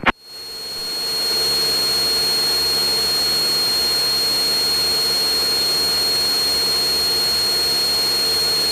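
Cessna 172 Skyhawk's piston engine and propeller running steadily in flight, heard inside the cabin, with a steady high-pitched whine over the drone. The sound swells up over the first second or so, then holds even.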